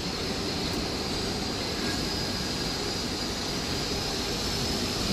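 Steady machinery noise of a factory hall: an even hiss over a low hum, with a thin, high, constant whine.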